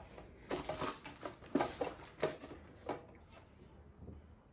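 Clear plastic juicer parts being handled and set down, with irregular light knocks and rustling of paper and plastic packaging.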